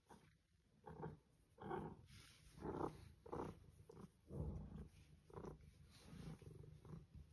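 A tortoiseshell cat making a run of short, faint vocal sounds, roughly one a second, while being stroked by hand.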